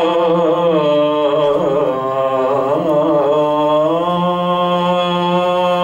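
A man's voice singing a naat (an Urdu devotional poem) in a melismatic style. Ornamented runs in the middle give way to one long held note from about four seconds in.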